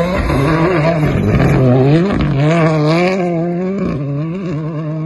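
Rally car engine running hard at high revs, its pitch rising and dropping as the throttle is worked through a gravel corner, loudest about two seconds in.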